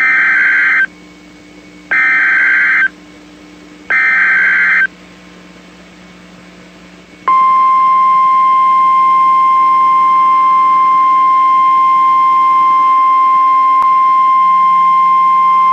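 NOAA Weather Radio Emergency Alert System signal: three one-second bursts of the digital SAME header, about two seconds apart, then, about seven seconds in, the long steady 1050 Hz warning alarm tone.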